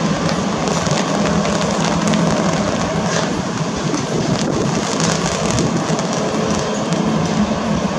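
Airbus A321-200 jet engines running at low thrust as the airliner taxis into take-off position: a steady hum over an even hiss.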